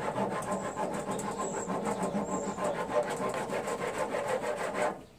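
Hand file rasping back and forth over a hardened hot-glue patch in a plastic lawn tractor hood grill, in quick, even strokes that stop near the end.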